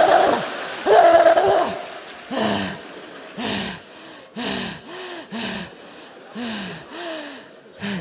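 A woman's voice in strain: a loud, drawn-out wailing cry, then a run of short breathy groans about once a second, each rising and falling in pitch.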